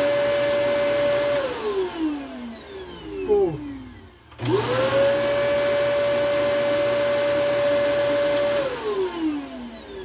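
KYOWA canister vacuum cleaner's motor running with a steady whine. It is switched off a little over a second in and winds down with falling pitch, is switched back on about four seconds in and quickly runs up to speed, then is switched off again near the end and winds down. The on-off cycles test its power switch, which used to cut the motor out after switching on and has been lubricated with WD-40.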